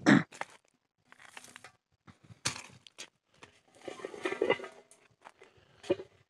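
Scattered crunching and rustling from footsteps on dry gravelly soil, with a sharper crunch about two and a half seconds in and a cluster of them around four seconds.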